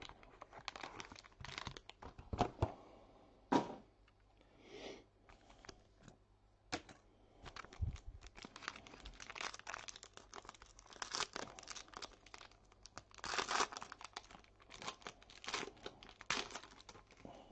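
Wrapping on a sealed box of trading cards being torn and crinkled open by hand: a run of irregular crackles and rips.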